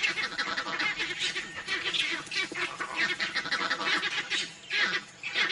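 A troop of small monkeys screaming and chattering in alarm as they scatter from a hunting leopard, with many shrill calls overlapping. There is a brief lull about four and a half seconds in.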